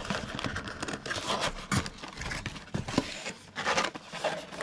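Packaging of a trading-card blaster box being torn open and handled: irregular crinkling, scraping and tearing.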